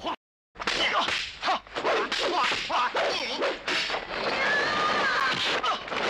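Kung fu film fight soundtrack: a wooden staff whirled fast, with a quick run of swishing whooshes and sharp whacks of blows. It starts after a brief silent gap near the beginning.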